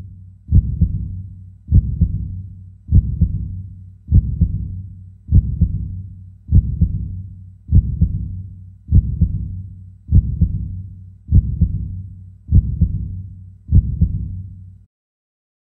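Heartbeat sound effect: slow, low, loud thumps about every 1.2 seconds, each dying away quickly, stopping abruptly near the end.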